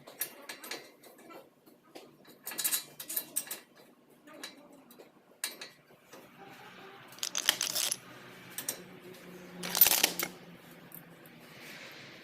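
Metal tools and parts clinking and clattering in irregular knocks, with a louder clank about ten seconds in.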